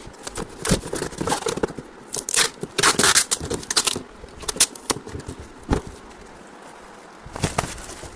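Irregular handling noises: scraping, rustling and sharp clicks and knocks, coming in a dense run over the first few seconds, then a few single knocks, and another cluster near the end.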